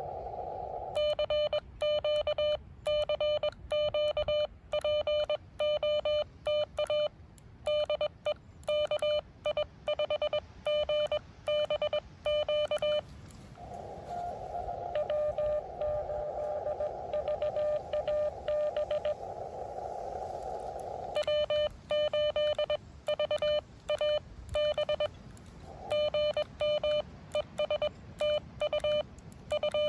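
Morse code on an amateur radio CW transceiver: a steady mid-pitched beep keyed in quick dots and dashes. About 13 seconds in the sending breaks off for band-limited hiss from the receiver, with a fainter Morse signal in it. Sending resumes about 21 seconds in.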